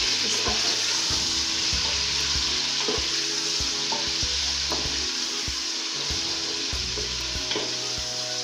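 Raw chicken pieces frying in hot oil with onions and garlic in an aluminium pressure cooker: a steady sizzle. A wooden spatula stirs the pieces, with now and then a light scrape or knock against the pot.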